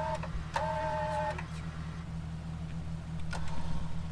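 A vehicle engine idling steadily, with two short electronic two-tone beeps in the first second and a half.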